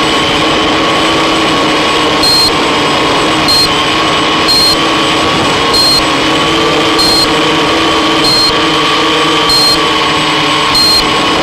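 The eight electric motors of a MultiWii octocopter whine steadily. From about two seconds in, a short high beep repeats roughly every second and a quarter, about eight times. This is typical of a low-battery alarm, and the pack voltage is sagging toward the crash.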